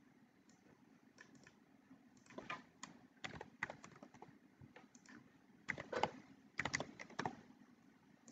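Faint typing on a computer keyboard: scattered clicks, then a quick run of keystrokes about six to seven seconds in.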